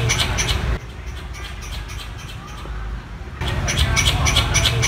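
Finlayson's squirrel (variable squirrel) calling for a mate: a rapid series of sharp, high chirps, about six a second. The calling breaks off about a second in and starts again near the end.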